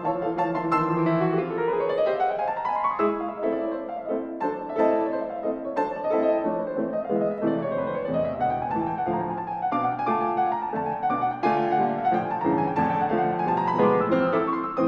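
Background piano music, with quick runs of notes climbing and falling.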